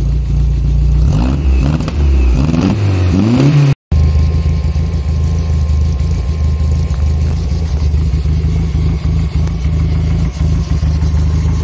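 Nissan A14 four-cylinder engine running steadily, with a few short rises in pitch in the first few seconds. It has a new electronic distributor fitted and its ignition timing freshly set.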